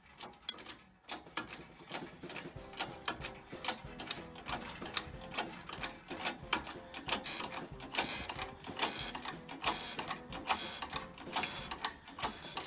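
Rapid, uneven mechanical clicking and tapping, many clicks a second.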